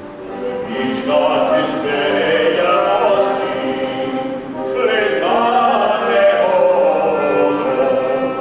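Singing voices carrying a melody in long held notes, in two phrases with a short break between them.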